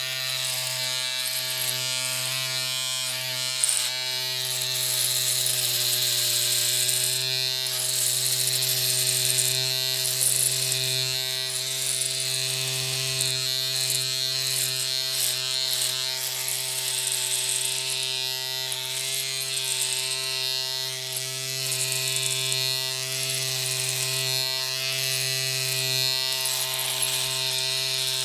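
Electric shaver running continuously, a steady motor buzz under a high hiss that swells and fades in waves.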